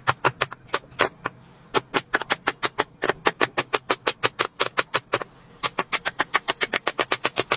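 Bubbles of a 400-bubble jumbo silicone pop-it fidget toy being pressed in quick succession, about seven or eight pops a second, with brief pauses about a second in and again past five seconds.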